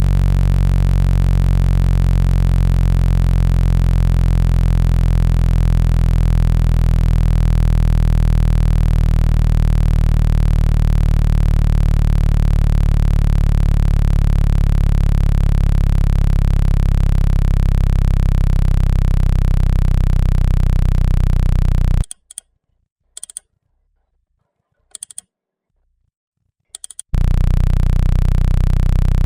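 Loud, steady, low-pitched synthesized buzzing tone with many overtones, played to shake water out of a phone's loudspeaker. It cuts off about two-thirds of the way through, leaving silence with a few brief blips, then starts again near the end.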